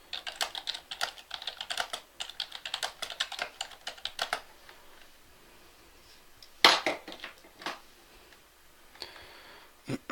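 Typing on a computer keyboard: a fast run of keystrokes for about four and a half seconds, then a few separate, louder clicks.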